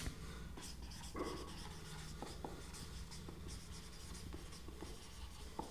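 Marker pen writing on a board: faint squeaky strokes as a heading is written out, over a steady low hum.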